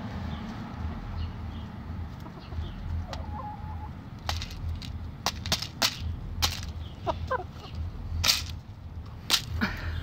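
Chickens pecking cracked corn from a hard plastic container: a run of sharp beak taps on the plastic, mostly in the second half, with a few soft clucks.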